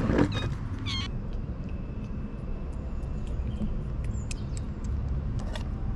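A two-week-old kitten giving two short mews in the first second, over a steady low rumble with faint small clicks.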